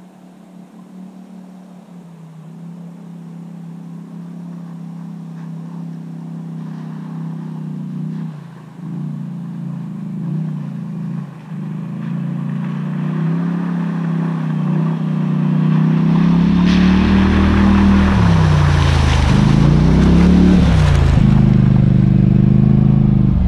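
Off-road vehicle's engine approaching, growing steadily louder and rising and falling in pitch with the throttle. About two-thirds of the way in it drives through a shallow creek, with loud splashing and churning water over the engine.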